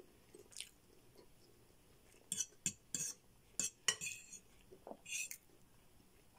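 Metal fork scraping and clicking against a bowl while spaghetti is twirled: quiet at first, then a run of sharp clicks and short scrapes over about three seconds.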